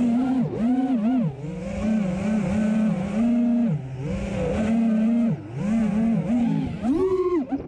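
5-inch FPV racing quadcopter (Hypetrain 2450kv motors on DAL Cyclone T5050C props) whining in flight. The pitch dips briefly several times as the throttle is eased off, then climbs sharply near the end on a hard punch.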